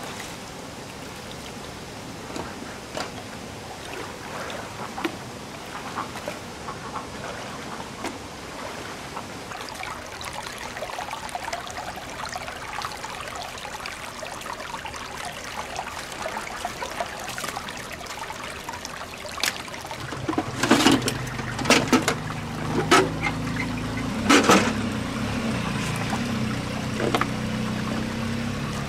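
Shallow water splashing and trickling as hands work in it, scattered with small clicks. About two-thirds of the way through, a louder run of flowing, trickling water sets in, with several sharp knocks, as a freshwater mussel shell is rinsed in the stream.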